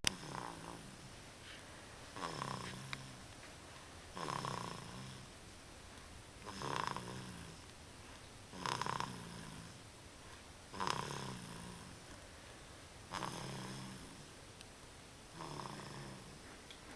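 A three-month-old baby with a cold snoring in his sleep. There are eight snoring breaths, evenly spaced about two seconds apart.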